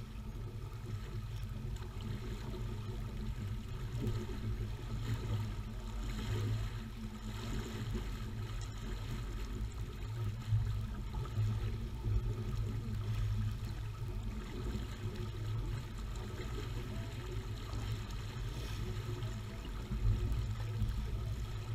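Water rushing along the hull of a J-35 sailboat moving under sail, over a steady low rumble.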